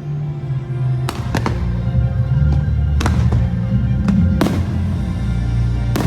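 Aerial fireworks bursting in a string of sharp bangs, about half a dozen, over loud orchestral show music from the park's sound system.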